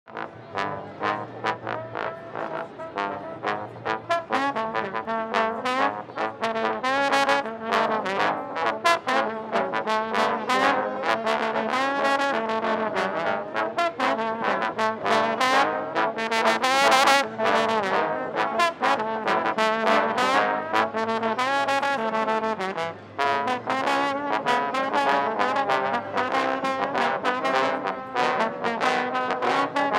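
B.A.C. trombone being played, a quick, continuous run of notes with slides between some of them.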